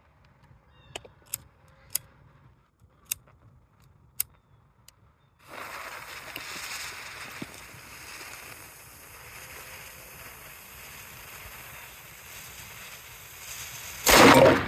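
Miniature black-powder cannon: a few sharp clicks, then a steady hiss of about eight seconds as the fuse burns down, ending in one loud blast as the cannon fires near the end.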